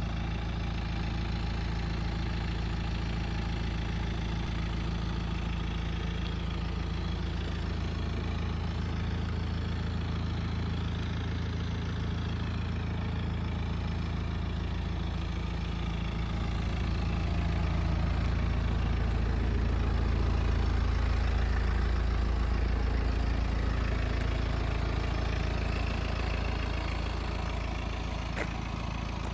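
BMW 318d's N47 four-cylinder turbodiesel engine idling steadily, with a noise at idle that the owner calls strange. It grows a little louder past the middle and settles back near the end.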